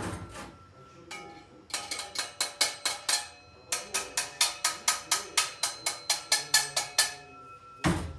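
Runs of sharp, ringing, cowbell-like strikes at an even pace of about four a second, with short pauses between runs. A single heavier knock near the end.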